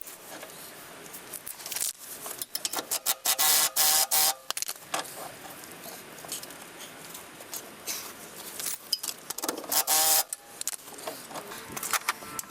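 Metal clicking and clinking from coil spring compressors being tightened onto a Jeep Grand Cherokee WJ's rear coil spring, with two faster runs of clicks, about a third of the way in and again near the end.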